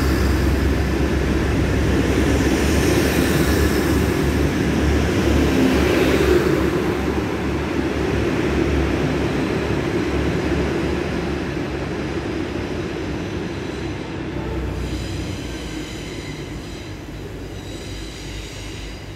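Grand Central Class 180 Adelante diesel multiple unit running, its Cummins diesel engines and wheels on the rails making a steady low rumble. The sound is loud at first and fades gradually from about six seconds in.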